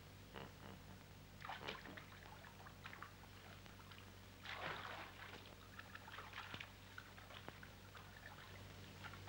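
A few faint splashes of water, the clearest about one and a half and four and a half seconds in, over a low steady hum.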